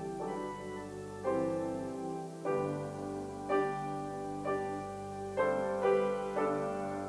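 Slow keyboard music played in the church before the service opens, with sustained chords changing about once a second.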